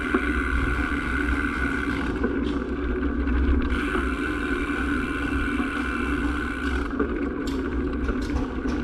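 Small vehicle's engine running steadily at low speed, heard from on board, with a low rumble of wind on the microphone.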